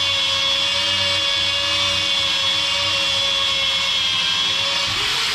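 Electric power tool running steadily with a constant whine as it sands a stainless-steel exhaust pipe with 320-grit paper. This is the first sanding pass before felt polishing, and the friction heats the pipe.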